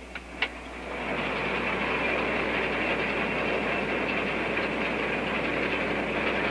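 Two clicks as the cab door is unlatched. The noise of the International Harvester Axial-Flow combine at work then swells in through the open door and runs on as a steady, loud mechanical din.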